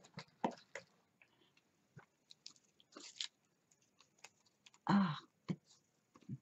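Light handling noises of a plastic-packaged set of decorative washi tape rolls being picked up and turned in the hands: scattered soft clicks and crinkles. A brief vocal sound comes about five seconds in.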